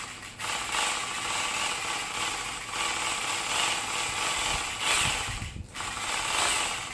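Hitachi DH26PC 830 W rotary hammer drill running in chisel (hammer-only) mode. It starts about half a second in and runs steadily, is cut off briefly about five and a half seconds in, then runs again until near the end.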